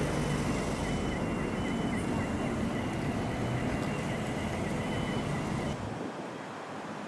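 Steady outdoor background noise with a low rumble and a thin, high, evenly repeating warbling tone. Both cut off abruptly near the end, leaving quieter wind noise on the microphone.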